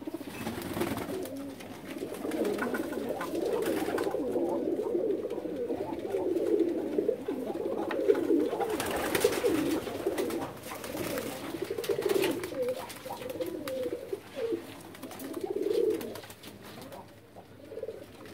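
A loft full of domestic fancy pigeons, fantails among them, cooing continuously, many low warbling coos overlapping. A few sharp clicks and rustles come through in the middle.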